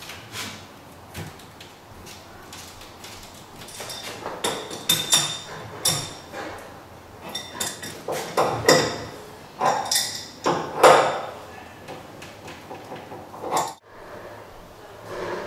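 Adjustable wrench clinking and scraping on brass fittings while a braided stainless-steel water heater supply line is tightened: a run of sharp metallic clicks and rasps, loudest a little past the middle, stopping abruptly near the end.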